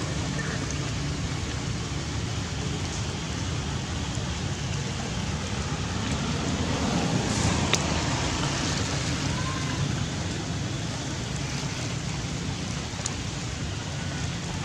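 Heavy rain falling steadily, a constant hiss of rain on stones, leaves and puddles, with one sharp click about halfway through.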